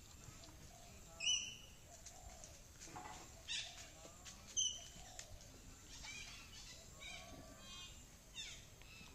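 A handful of high-pitched animal calls: two short, sharp chirps about a second and four and a half seconds in are the loudest, with several fainter squeaky calls that fall in pitch between them.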